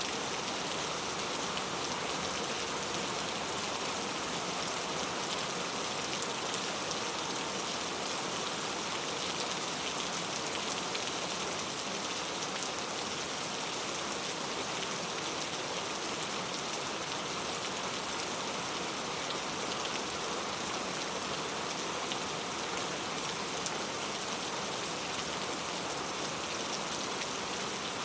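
Steady rain ambience: an even hiss of rainfall with a faint patter of drops and no change in intensity.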